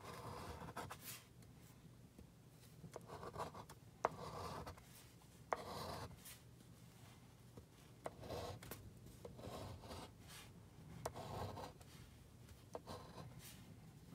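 The edge of a casino chip scraping the latex coating off a scratch-off lottery ticket, in short separate strokes a second or two apart, with a few sharp ticks.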